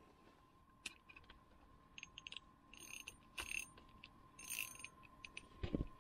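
Quiet handling of a jigging rod and reel over an ice hole: scattered small clicks and short rustles, the loudest about halfway through, over a faint steady high tone.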